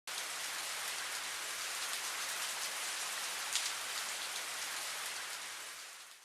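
Steady rain falling, fading out near the end.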